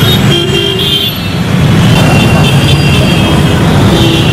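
Diesel engine of a JCB backhoe loader running steadily, with a short dip in loudness about a second in.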